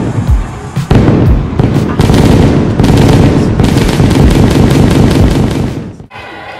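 Pyrotechnics and fireworks going off in a fast string of sharp bangs and crackles. A few single bangs come first, then a dense, continuous run from about a second in, which cuts off suddenly near the end.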